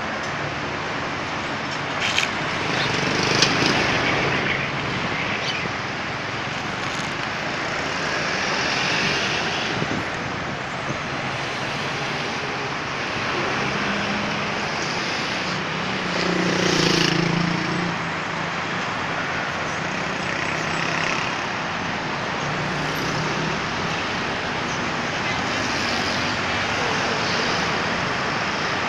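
Steady road traffic noise from passing cars and trucks, swelling several times as louder vehicles go by, the largest swell a little over halfway through.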